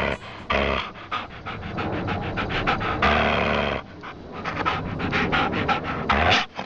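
Rapid dog-like panting with the tongue out: quick noisy breaths several times a second, broken by a few longer, louder huffs.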